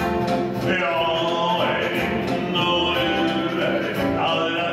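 A man singing a Swedish song in long held notes into a microphone, accompanying himself on acoustic guitar.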